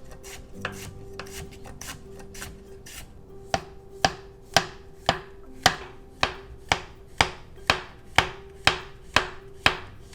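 Kitchen knife chopping on a cutting board: light strokes at first, then steady, firmer strokes about twice a second from roughly three and a half seconds in.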